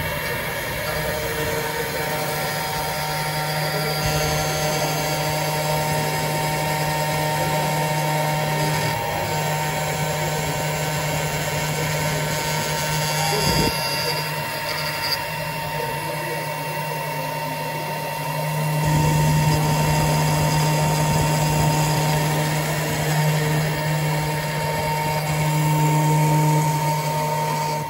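AMMA Q10 CNC router's spindle running as a pointed engraving bit cuts into a plexiglass sheet: a steady whine over a low hum, growing louder about two-thirds of the way in.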